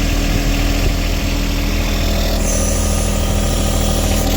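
John Deere tractor engine running steadily at low speed. About halfway through, a high hiss joins it for roughly two seconds, then cuts off.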